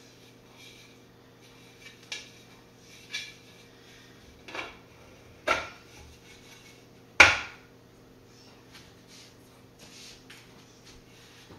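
3D-printed plastic lens hood being fitted onto a telephoto lens's bayonet mount: a series of light knocks and clicks growing louder, then a sharp clack about seven seconds in as the hood seats and locks.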